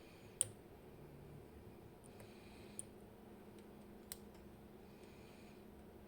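Faint clicks of a lock pick working the side pins of a Robur Mini 6K safe deposit lock: three short clicks, the loudest about half a second in and the others around three and four seconds in.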